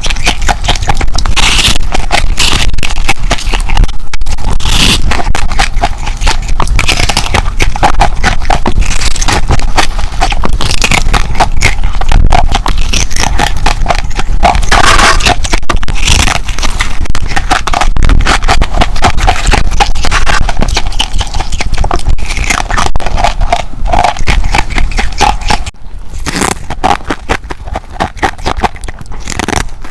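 Close-miked biting and chewing of humidifier ice: loud, dense crunching and crackling that goes a little quieter over the last few seconds.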